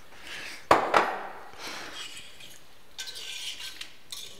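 Two sharp knocks about a second in, then a metal whisk clinking and scraping against a steel pot as liquid soup is stirred.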